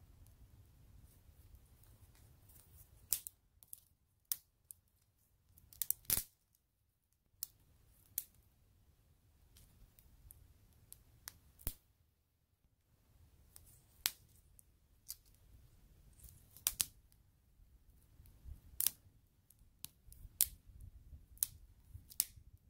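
Small wood campfire crackling: irregular sharp pops and snaps of burning sticks with uneven gaps between them, a quick cluster of louder pops about six seconds in.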